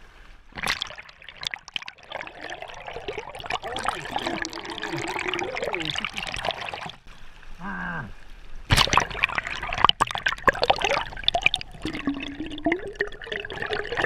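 River water sloshing, bubbling and splashing around a camera held at the surface and dipping under it, with sharp splashes about a second in and about nine seconds in. A short frustrated growl from the snorkeler comes about eight seconds in.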